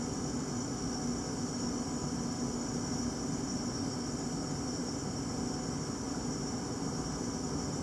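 Steady background noise: a constant low hum with a high hiss over it, unchanging throughout.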